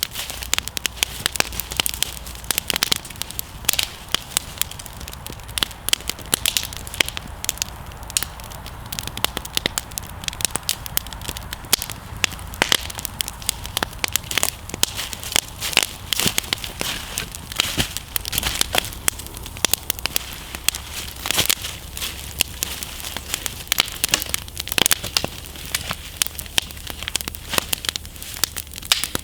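Wood campfire crackling and popping, a dense run of irregular sharp snaps as the newly lit fire catches.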